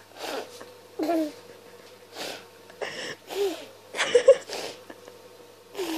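A baby's breathy huffs and short wordless vocal sounds, several in a row with brief pauses between.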